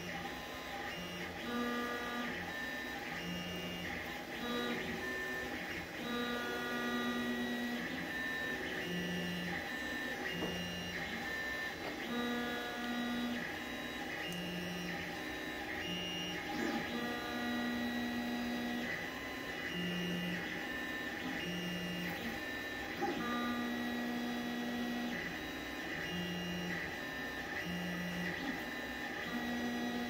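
Machine whine in short held tones that jump between a few pitches about every second, over a faint constant high tone.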